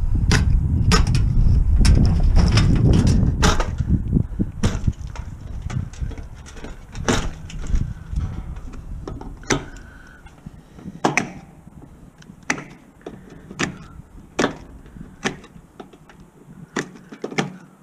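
Irregular sharp metal knocks and clanks, roughly one a second, from parts of a scrapped stove being handled and pulled apart. A heavy low rumble sits under the first few seconds and then fades.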